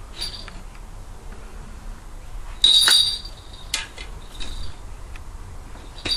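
Falconry bells on a Harris hawk jingling in short clinks. The loudest burst of ringing comes about three seconds in, with smaller jingles before and after it.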